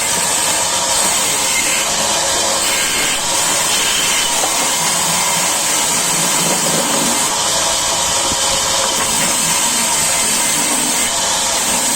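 Sawmill saw running steadily as it cuts through timber: a loud, even mechanical hiss with a faint steady high tone.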